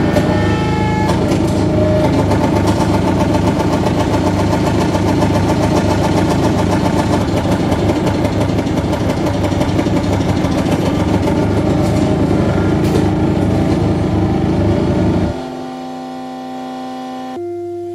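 Harsh, dense noise music from a saxophone feedbacker, a saxophone driven in an amplified feedback loop with a microphone, with a low steady drone underneath. About fifteen seconds in it cuts off suddenly, leaving quieter held feedback tones.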